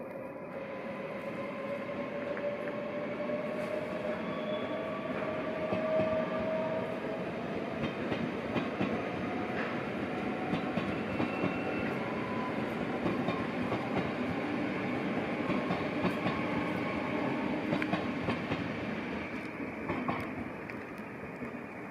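NS VIRM double-deck electric train pulling away: a motor whine rises in pitch over the first several seconds as it accelerates, over a steady rumble of wheels on rail with scattered clicks from the track.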